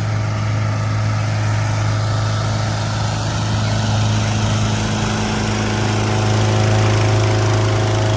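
Small gasoline engine of a balloon inflator fan running steadily at a constant speed, a loud hum with the rush of the fan's air, keeping a hot air balloon blown up.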